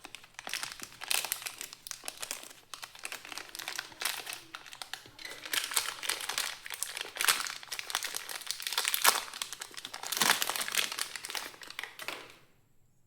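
Packaging crinkling and rustling as a new set of motorcycle brake pads is unwrapped by hand, in irregular handling noises that stop shortly before the end.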